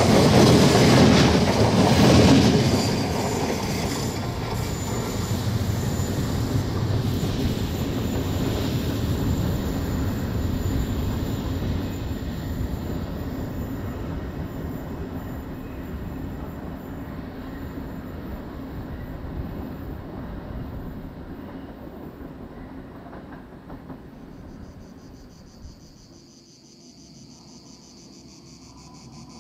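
Passenger coaches' wheels running on the rails of a curving viaduct, heard from aboard, with wheel squeal on the curve; loud for the first few seconds, then fading steadily. Near the end it gives way to insects chirping.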